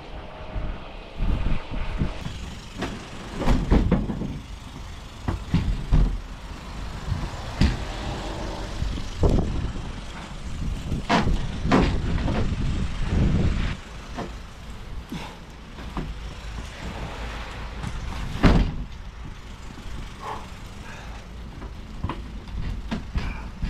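A slide-in camper being worked into a pickup truck bed: irregular knocks, thuds and scraping, one loud bang about eighteen seconds in.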